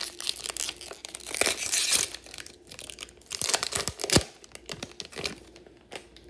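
Foil trading-card pack wrapper being torn open and crinkled by hand, with a long tear about a second and a half in and sharp crackling crinkles around four seconds in, then quieter rustling.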